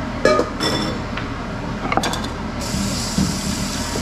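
Kitchen clatter: metal utensils or dishes knocking together near the start and again around two seconds in, then a kitchen tap turned on and water running from about two and a half seconds in. A steady hum from the range hood fan runs underneath.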